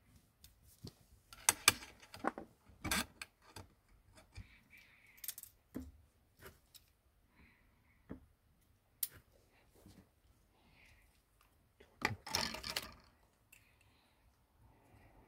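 Small metal repair tools and tiny screws clicking and scraping against a smartphone's frame as screws are fitted during reassembly: a scatter of sharp clicks and short rustles, busiest in the first three seconds and again about twelve seconds in.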